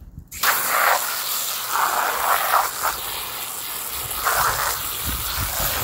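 Water spraying steadily against a container as it is rinsed out, a loud hiss that starts abruptly just after the beginning.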